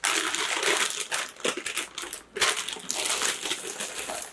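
Plastic packaging crinkling and rustling in irregular bursts as hands rummage through a bag of wrapped collectibles.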